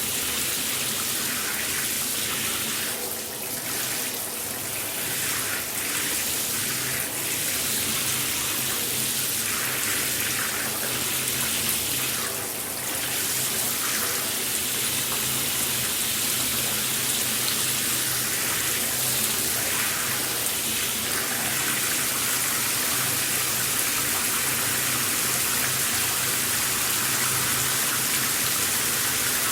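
Shower running, water spraying and splashing in an even hiss. The spray shifts unevenly a few times in the first half, then holds steady.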